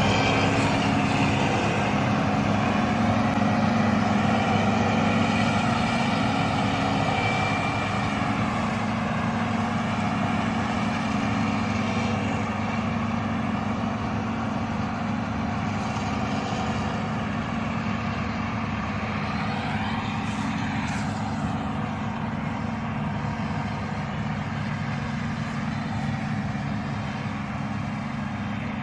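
Self-propelled windrower's diesel engine running steadily under load as the machine mows grass, slowly fading as it moves away.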